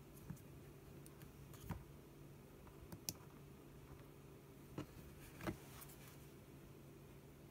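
Near silence with a steady low hum, broken by about five soft clicks spread through, from fingers handling an iPhone 6 and pressing its buttons and screen.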